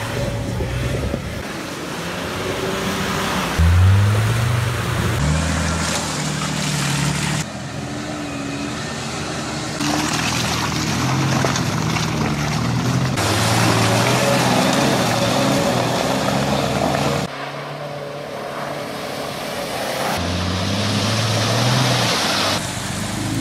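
Off-road 4x4 SUV engines revving hard under load through mud and water, in a run of short clips that cut abruptly every few seconds. Near the end, water splashes as a vehicle drives through a flooded track.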